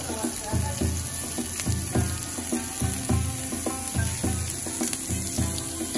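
Mutton slices and vegetables sizzling on a hot dome-shaped jingisukan (Genghis Khan) grill as more meat is laid on with tongs, under background music with a steady beat of about two thumps a second.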